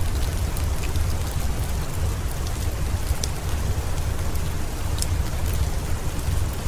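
Steady rain mixed with a crackling wood fire in a fireplace. An even hiss of rain sits over a deep low rumble, with scattered sharp pops from the fire.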